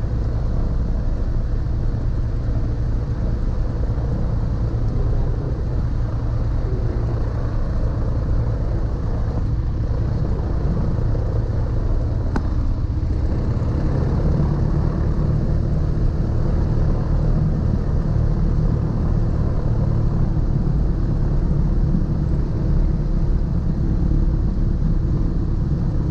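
Twin-engine light aircraft's piston engines and propellers running at taxi power, heard from inside the cockpit as a steady low drone. It grows a little louder from about halfway through.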